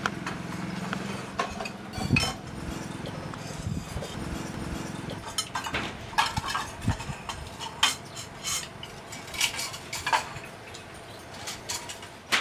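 Plates, bowls and spoons clinking and clattering as dishes are gathered and stacked from a table, with many sharp clinks through the second half. A low engine hum fades out in the first few seconds.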